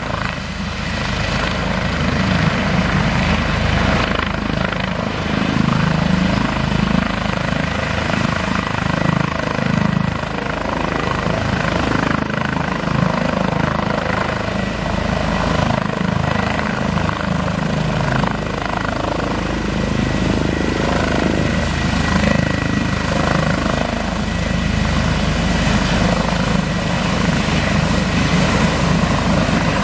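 Airbus H145 twin-turbine helicopter with a Fenestron ducted tail rotor hovering low: steady loud rotor beat and turbine noise, with a thin steady whine above it.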